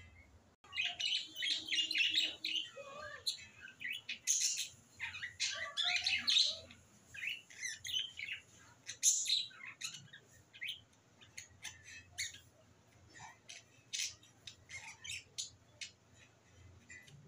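Small birds chirping and squawking in quick, busy calls for the first half or so. These thin out into scattered sharp clicks and taps, in step with a stone roller being worked over a stone grinding slab.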